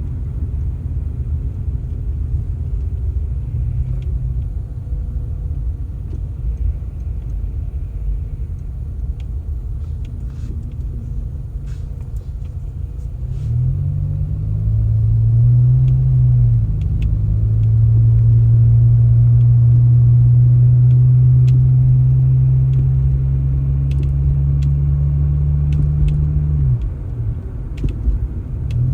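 A vehicle engine rumbling low. About halfway through it revs up, dips once, then holds a steady higher pitch for about ten seconds before dropping back near the end and revving again.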